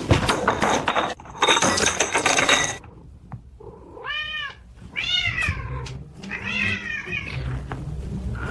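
Domestic cat meowing three times, each meow rising then falling in pitch, after a couple of seconds of loud hissing noise.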